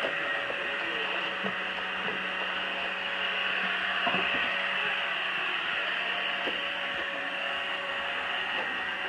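Pure Clean robot vacuum running across carpet: a steady whirring hiss from its fan and brushes over a low motor hum, with a few faint knocks.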